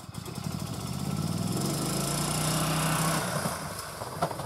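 Golf cart's small engine running under load as the cart drives through deep dry leaves. It grows louder about a second and a half in and eases off near the end, over a steady rustling hiss of leaves under the tyres.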